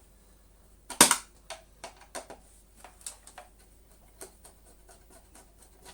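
Clicks and knocks as a part of a Hoover Celebrity vacuum cleaner is fitted back on by hand: one sharp knock about a second in, then a run of lighter, irregular clicks and taps.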